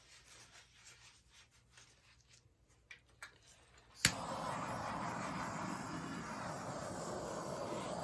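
Handheld gas torch clicks as it is lit about four seconds in, then burns with a steady hiss.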